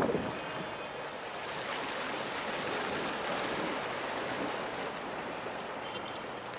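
Steady wash of water with wind, an even rushing noise with no engine note standing out.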